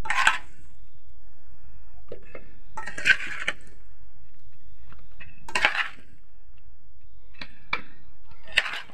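A spoon clinking and scraping against a steel bowl and a plastic jar as tree-tomato pickle is spooned into the jar: about six short strokes spread apart, two of them close together near the end.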